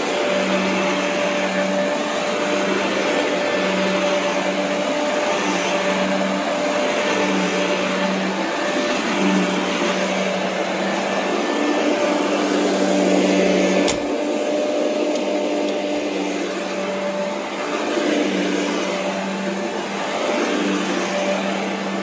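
Royal upright vacuum cleaner running while it is pushed back and forth over carpet. A low hum breaks off and returns every second or two, and there is a single sharp click about two-thirds of the way through.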